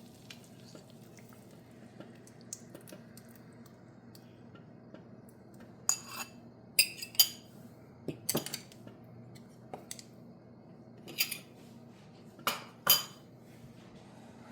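Metal kitchen utensil clinking and knocking against cookware while cooking, about eight ringing clinks in small clusters after a quiet start with a low steady hum.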